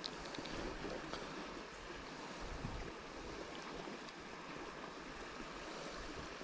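Steady rush of a small river's flowing water, with a few faint clicks in the first second.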